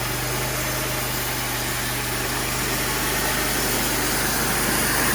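Cook band sawmill running steadily as its old, nearly dull band blade cuts through a knotty log: a steady engine drone with a high whine that grows a little louder toward the end.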